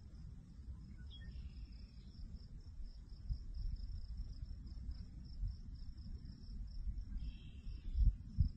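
Insects chirping in a steady, fast-pulsing high trill over a low rumbling noise, with two louder low thumps near the end. A few brief higher chirps come about a second in and again near the end.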